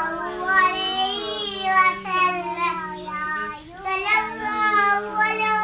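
A young child singing a wavering melody with drawn-out notes, pausing briefly about three and a half seconds in, over a steady low hum.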